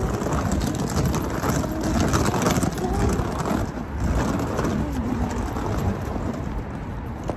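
Street noise picked up by a hand-held phone while walking: a steady rumbling, rustling wash of road traffic, with the microphone rubbing and crackling against clothing.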